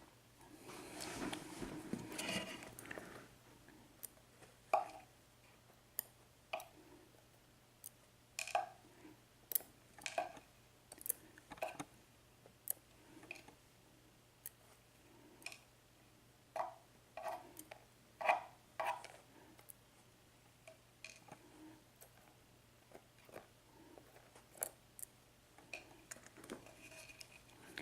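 Small brass lock pins and springs from a disassembled Euro cylinder lock being moved about on a desk: a rustle near the start, then scattered light metallic clicks and ticks at uneven intervals.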